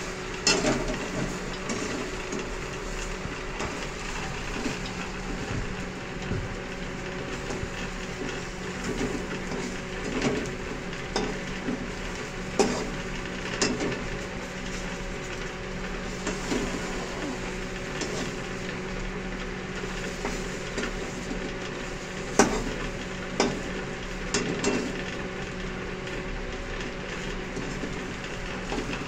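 Egg-battered chicken pieces sizzling as they fry in oil in a metal kadai. A metal spatula scrapes around the pan now and then and gives a few sharp knocks against it as the pieces are turned; the knocks are the loudest sounds.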